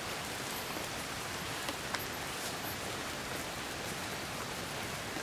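Steady, even hiss of falling rain, with a couple of faint ticks about two seconds in.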